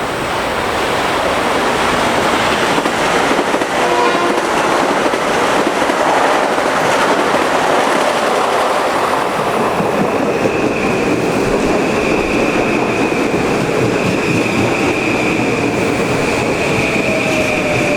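Passenger train passing at speed on the New Haven Line, a loud steady rush of wheels on rail, with a short horn note about four seconds in. A steady high-pitched whine joins about ten seconds in.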